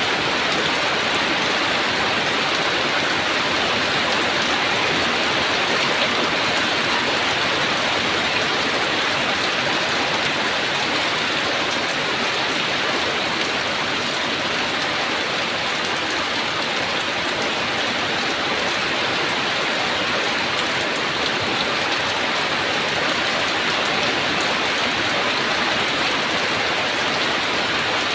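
Heavy rain falling steadily, an even hiss with no let-up or thunder.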